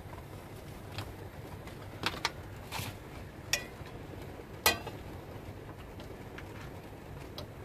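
A frying pan knocking and scraping on the metal pan support of a gas hob as it is set down and settled, with several light knocks and one scrape; the loudest knock comes about two-thirds of the way through. A steady low sound runs underneath.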